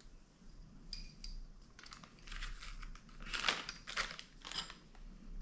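Clear plastic bag and small plastic intercom mounting parts being handled: a few light clicks about a second in, then a run of short crinkling, scratchy rustles.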